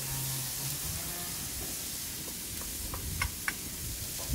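Chopped onions, garlic and orange pieces sizzling steadily in a pan on a gas grill as they sweat in oil, stirred with a wooden spoon. A few light clicks come in the second half, with a sharper knock at the very end.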